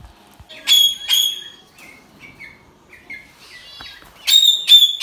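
Caged ringneck parrots screeching: two loud, shrill calls about a second in, then a quick run of five more near the end, with softer chirping from other birds between. The birds raise this noise on seeing their keeper.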